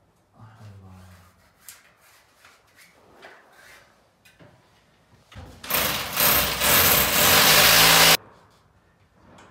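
Handheld electric drill boring into a marble-patterned wall tile: about two and a half seconds of loud drilling that starts around five and a half seconds in and stops abruptly. Before it come a few light handling knocks and clicks.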